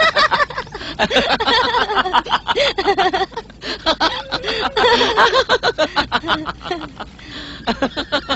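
Human laughter: a voice laughing in quick, pitched bursts, trailing off near the end.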